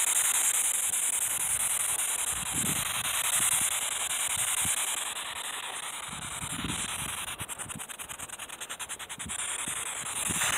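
Steady hiss of static from a handheld electronic ghost-hunting device, broken in stretches by rapid, even ticking, with a few soft low thumps in between.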